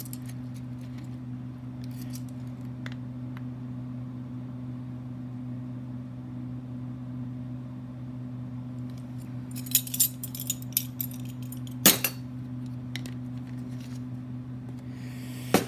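Ring of metal measuring spoons jangling and clinking while vanilla is measured out, with a cluster of small clinks a little after halfway and a sharp metallic clink about twelve seconds in. A steady low hum runs underneath.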